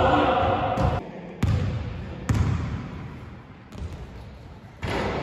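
Basketball bouncing on a wooden gym floor: a few separate bounces about a second apart, each ringing out in the large hall. A shout comes at the start.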